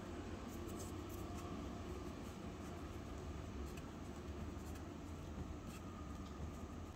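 Soft rubbing and faint scratchy ticks of fingers kneading a small ball of dough on a flour-dusted surface, over a steady low hum.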